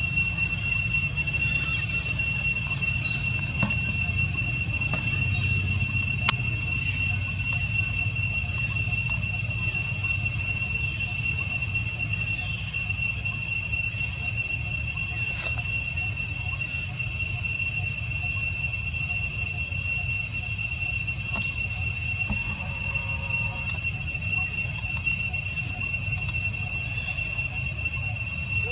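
Insects droning in an unbroken, steady high-pitched chorus at one pitch, over a low rumble.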